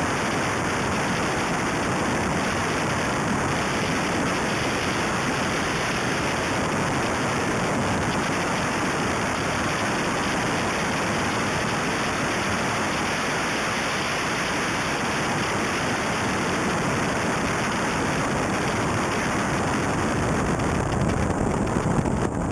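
Mitsubishi Lancer Evo III rally car at speed on a gravel stage, heard from a roof-mounted camera: a steady rush of wind over the microphone and tyres on loose gravel, with no clear engine note standing out of it.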